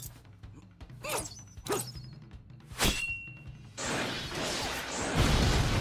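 Anime fight sound effects: three quick whooshes about a second into the clip and a short metallic ring, then a long loud crashing rush that peaks in a heavy low impact near the end.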